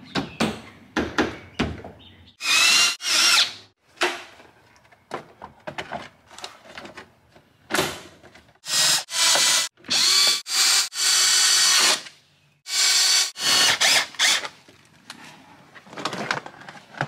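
Cordless impact driver with a 10 mm socket running in several short bursts of about a second each, driving in the dash's 10 mm bolts, with clicks and knocks of plastic trim panels between the bursts.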